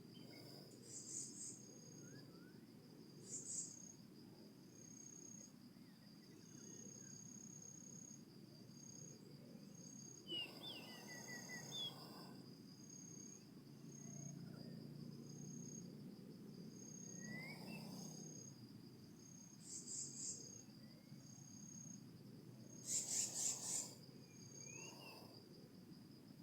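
Steady high-pitched insect trilling, one continuous tone with a pulsing one just above it, with short bird chirps scattered through. A few brief louder bursts break in, the loudest a cluster near the end.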